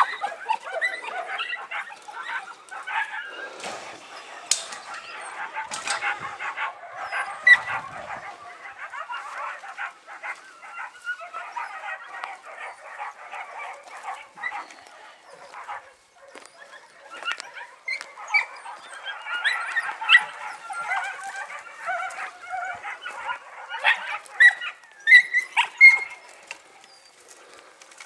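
Three-month-old podenco puppies barking and calling almost continuously while they play, with a quieter stretch in the middle.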